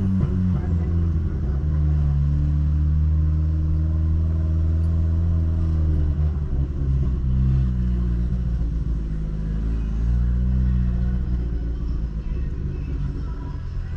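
Ford New Fiesta driving with a modified exhaust fitted with a diffuser. The exhaust rumbles steadily, and the engine note falls and rises several times with the throttle.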